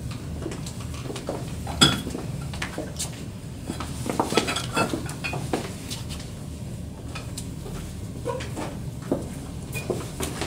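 Scattered light clinks and knocks of small containers being picked up and handed over from a table, over a steady low room hum.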